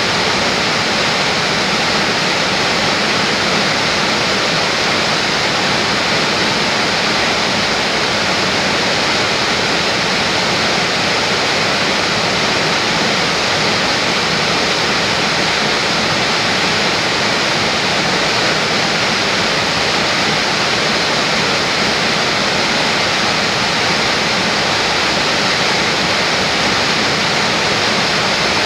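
Whitewater of a waterfall pouring over rocks: a loud, steady rush of falling water.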